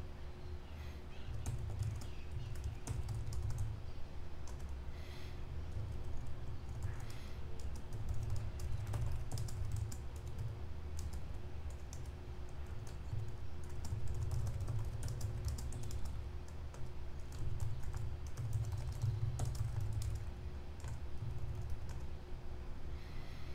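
Typing on a computer keyboard: irregular key clicks, over a low steady hum.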